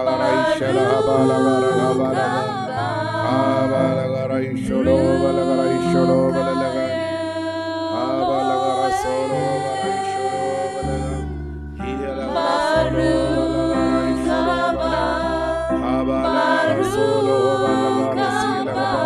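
Devotional worship song: voices singing a slow melody over sustained bass notes that change every second or two.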